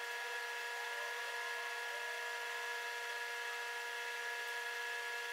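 A steady background whir made of several held tones over a soft hiss, unchanging throughout.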